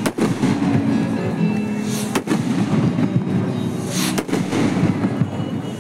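Rocket fireworks launching with a rushing whoosh and going off with sharp bangs, three of them about two seconds apart, over steady music.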